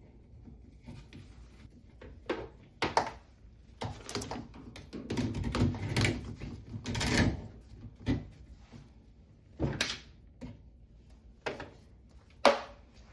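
Dryer vent cleaning rods and brush being handled and worked: irregular knocks and clunks, with a longer scraping, rubbing stretch in the middle and the sharpest knock near the end.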